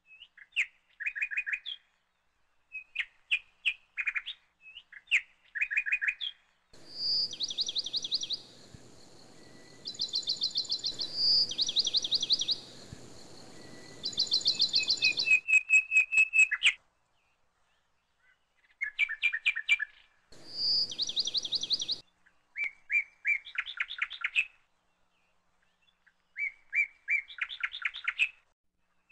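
Small birds chirping in quick, trilling bursts about a second long, one bout after another with short pauses. A faint hiss sits behind some of the bouts and switches on and off abruptly.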